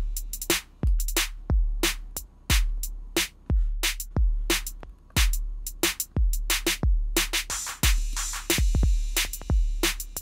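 Electronic drum loop playing back as two layered copies offset by a bar, so the grooves overlap like a delayed drum loop. One copy is being high-pass filtered to strip its kick and keep only its high elements. Deep kick hits are the loudest thing, under a busy run of hi-hat and snare strokes.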